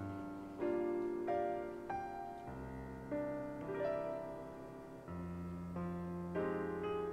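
Slow background piano music: single notes and chords struck about once a second and left to ring and fade.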